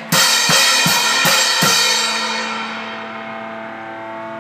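Rock drum kit and electric bass finishing a song: about five hard drum hits with crashing cymbals in the first second and a half, then the cymbals wash away while one amplified note keeps ringing.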